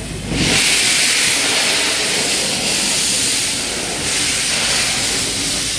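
Steam hissing from the LNER A3 Pacific locomotive Flying Scotsman. The loud, steady hiss starts suddenly about half a second in and carries on as the engine moves slowly by.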